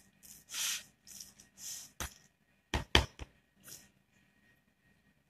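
A spoon scraping and stirring through creamy macaroni salad in a plastic tub, then several sharp knocks of the spoon against the tub about two to three seconds in.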